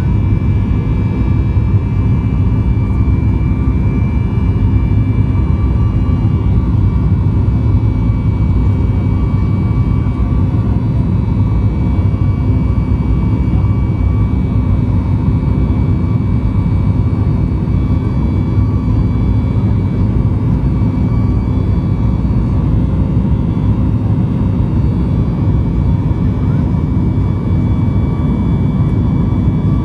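Cabin noise of a Boeing 737 MAX 8 beside its CFM LEAP-1B engine during climb-out: a loud, steady engine and airflow drone with a few faint steady whining tones above it.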